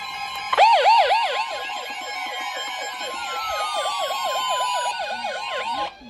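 NOAA weather radio receivers sounding their tornado-warning alarm: a steady alert tone near 1 kHz, joined about half a second in by a fast electronic warbling siren, about five swoops a second, with a second tone gliding slowly down in pitch. All of it cuts off abruptly just before the broadcast voice comes on.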